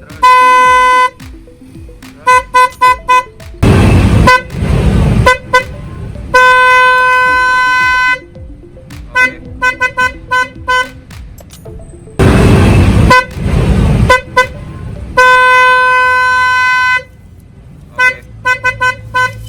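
ICC high-tone snail-type electric car horn sounding in a repeating pattern: a quick string of short toots, then a long steady blast of a second or more. Twice a harsher, noisier blare about a second and a half long breaks in.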